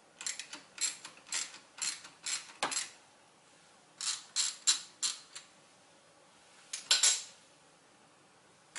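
Socket ratchet clicking in short, uneven runs as it loosens the 10 mm nut on a car battery's negative terminal clamp, with a longer, louder burst of clicking about seven seconds in.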